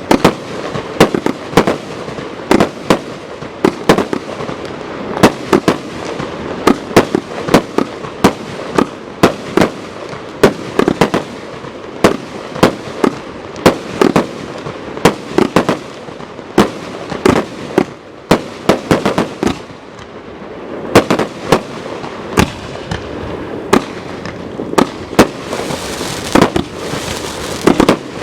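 J-Fireworks JF5044 consumer firework battery firing: a rapid, irregular series of sharp bangs, a few every second, with a hiss of crackle building up near the end.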